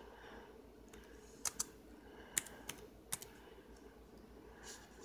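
A handful of keystrokes on a computer keyboard as a name is typed, the sharpest in quick pairs between about one and a half and three seconds in, with a softer one near the end, over a faint steady hum.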